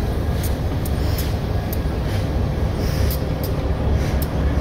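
Locomotives rolling slowly past: a diesel switcher's engine gives a steady low rumble, with irregular sharp clicks and knocks from the wheels and running gear, about one or two a second.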